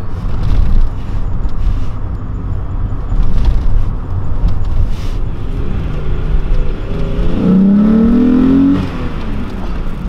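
Naturally aspirated VR6 engine of a VW Golf Cabrio under throttle, heard from inside the car, with a deep exhaust rumble that swells and eases. Near the end the engine note climbs steadily in pitch for about a second as it revs up, then drops suddenly as the throttle closes or the gear changes.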